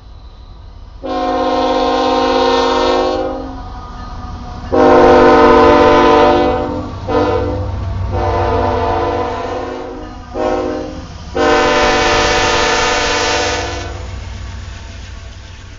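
Norfolk Southern diesel locomotive's air horn blowing the grade-crossing signal: two long blasts, a short one, then a long one. The low rumble of the passing train runs underneath.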